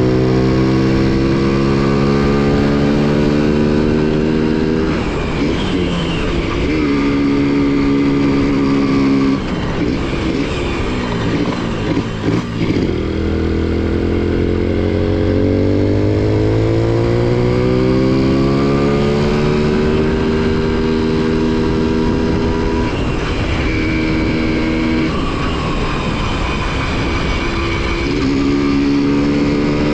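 Honda CDI-100 single-cylinder four-stroke motorcycle engine and exhaust running. The engine note falls and rises several times, with a few brief drops in the middle as the throttle is eased off, then climbs steadily again.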